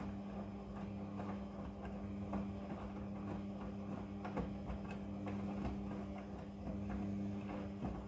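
Midea front-loading washing machine tumbling a wet wash load at the start of its wash cycle: a steady low motor hum under irregular soft knocks and clicks as the clothes fall in the drum.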